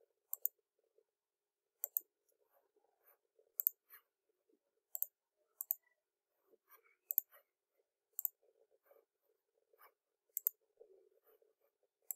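Computer mouse clicking: about eight quick pairs of sharp clicks, spaced a second or more apart, with near silence between them.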